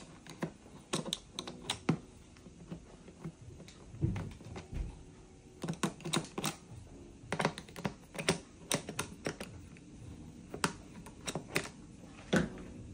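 Irregular clicks and taps of a screwdriver turning out the screws of a portable generator's side service panel, coming in small clusters, with a duller thump about four seconds in.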